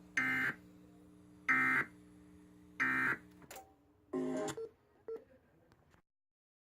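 Emergency Alert System end-of-message data burst: three short, identical screechy digital-tone bursts about 1.3 s apart, marking the end of the flash flood warning broadcast over the radio. A shorter, lower-pitched blip follows about four seconds in, then the sound cuts to silence.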